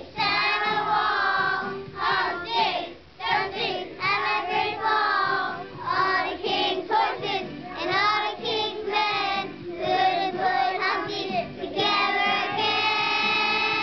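A group of young schoolchildren singing together, with steadier held notes near the end.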